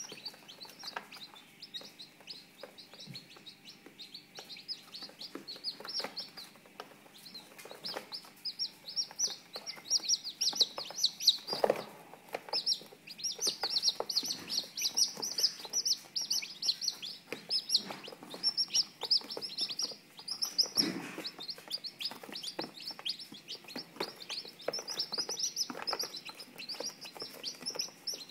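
A brood of newly hatched Orpington chicks peeping without a break: many short, high peeps that each slide downward, overlapping, getting louder and busier after about ten seconds. Two brief bumps stand out, one before the middle and one about two-thirds through.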